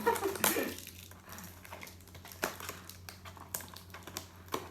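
Plastic packaging crinkling and rustling as it is pulled and torn open by hand, with scattered small sharp clicks and crackles.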